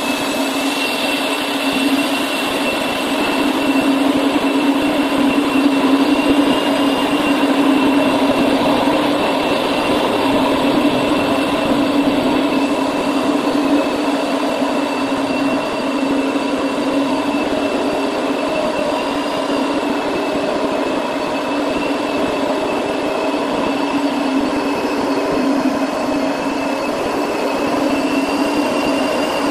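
Marble floor polishing machine running steadily, a constant motor hum and whine that swells slightly a few seconds in.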